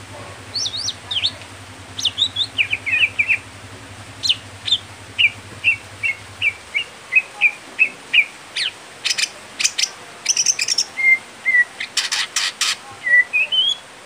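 Male greater green leafbird (cucak hijau) singing a varied song of short whistled notes: a run of evenly repeated notes, then bursts of sharp clicking notes, ending with a rising whistle.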